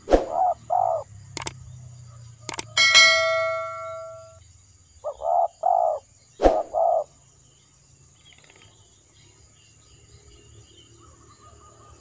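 Spotted dove cooing: a two-note coo near the start and a phrase of about four coos around five seconds in. A few sharp clicks and one bell-like ding that rings on for over a second about three seconds in.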